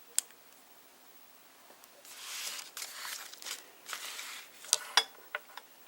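Batteries and the battery holder of a thermostat being handled: a sharp click, then a couple of seconds of scraping and rustling, and several quick clicks near the end.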